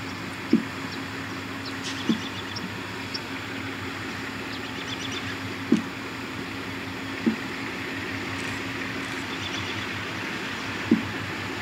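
GE B23-7R 'Super 7' diesel locomotives approaching slowly, their engine drone steady and growing slowly louder. Several short dull thumps stand out above it, and faint bird chirps come through now and then.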